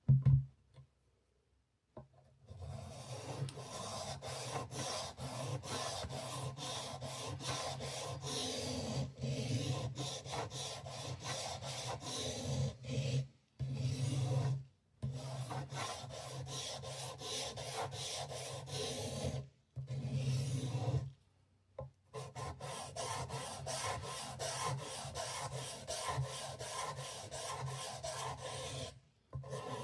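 Hand abrasive rubbing on a Swiss Army knife: rapid back-and-forth strokes, a few a second, in long bouts broken by short pauses.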